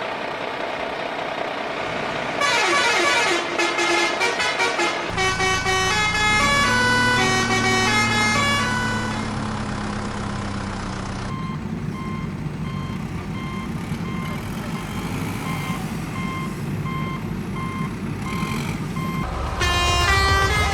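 Cartoon truck and backhoe sound effects: a melodic vehicle horn with an engine running beneath, then evenly spaced reversing beeps about once a second, and another horn tune near the end.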